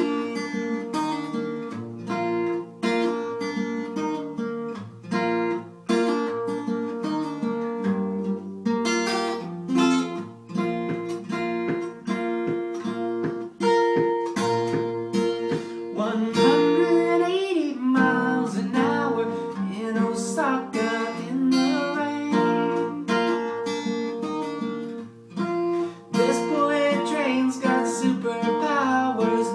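Acoustic guitar strummed and picked in a steady rhythm, an instrumental passage of the song between sung verses.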